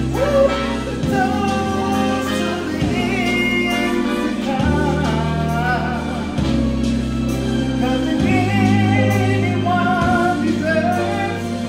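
A man singing with vibrato into a handheld microphone over a backing track played through a portable PA speaker; the bass holds long notes that change about every two seconds.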